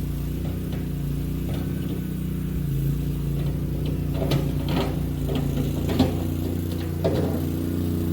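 Mini skid steer engine running at a steady speed, with scattered clanks and clicks from about halfway through.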